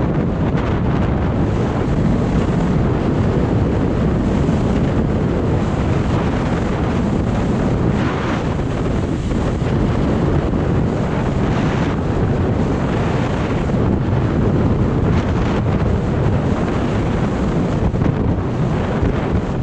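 Steady wind buffeting the microphone of a downhill skier, with the hiss and scrape of skis on packed snow. The hiss rises briefly about eight and twelve seconds in.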